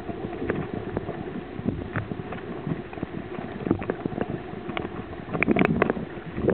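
Muffled water noise with scattered irregular knocks and clicks, which bunch into a denser burst of knocks about five and a half seconds in, as heard from a camera underwater beside a fishing boat while a yellowfin tuna is hauled up on a handline.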